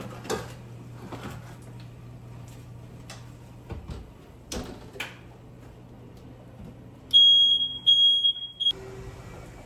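Smoke alarm beeping shrilly, three quick bursts near the end, set off by smoke from the oven. Before that, clunks as a metal baking pan is set down on the stovetop.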